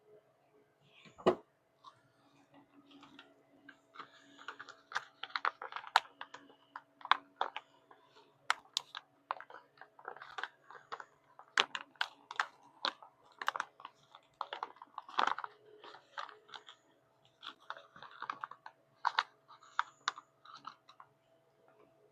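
Irregular small clicks and taps of brake caliper parts being handled, over a faint steady hum.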